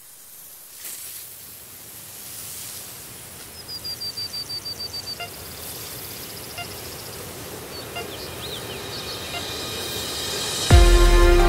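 Steady road and wind noise from a vehicle driving a gravel canyon road. About a third of the way in comes a quick run of about ten high chirps. Music starts abruptly near the end.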